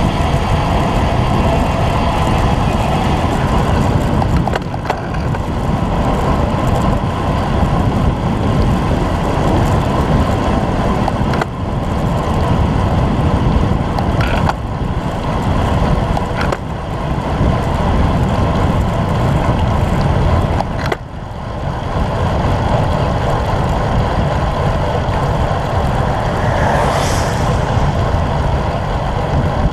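Wind rushing over a bicycle-mounted camera's microphone, mixed with tyre hiss on a wet road, as the bike rides at speed. The noise is steady and loud, with a few brief dips.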